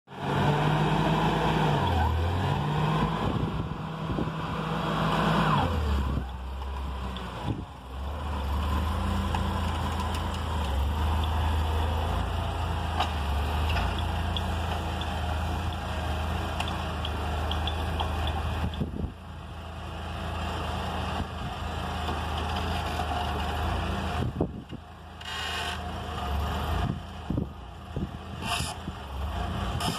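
LPG-powered Hyster forklift engine running while it lifts a pallet of bricks. The pitch rises and falls over the first six seconds, then settles into a steady drone, with a few knocks and clunks near the end.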